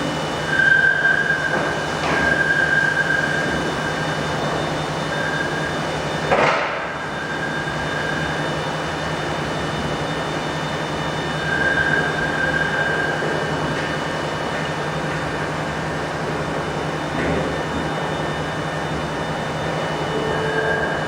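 Steady machine hum with a high squealing tone that comes and goes several times, and a single sharp knock about six seconds in.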